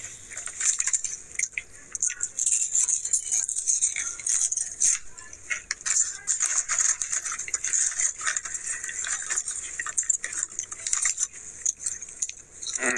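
A potato chip bag crinkling and rustling with dense, irregular crackles as a hand rummages inside it for chips.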